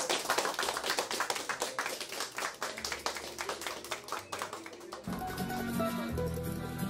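A crowd applauding, with many quick claps. About five seconds in, music with a bass line begins.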